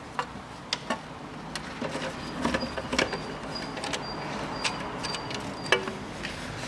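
Scattered metallic clicks and clinks of a socket wrench and bolts being fitted to the underside of a car, irregular and a few per second at most, with a faint high chirp repeating in the background.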